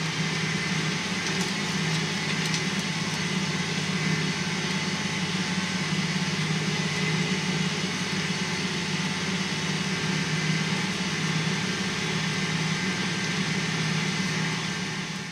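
John Deere 8235R tractor's six-cylinder diesel engine running steadily under load, heard from inside the cab, with a strong low hum, as it pulls a disc through the field. The sound fades out near the end.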